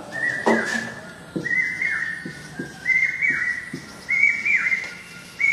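Repeated short whistled notes, roughly one a second, each holding a clear high pitch and then slurring down at the end.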